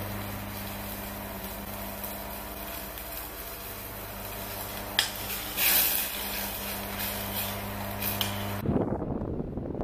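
A spoon clinks and scrapes in a seasoning jar and against a stainless steel pot as seasoning is spooned in, with sharp clicks about five seconds in and again near the end, over a steady low hum. The sound changes abruptly near the end to a rougher low noise.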